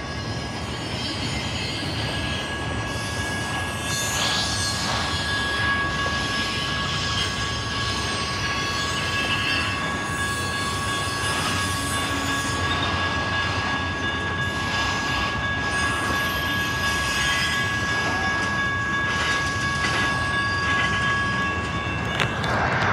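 Freight train cars rolling past with a steady rumble of wheels on rail, under a constant high-pitched wheel squeal.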